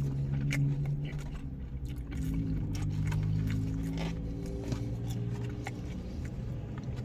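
A person chewing a mouthful of pizza, with scattered wet mouth clicks and smacks, over low steady tones in the background.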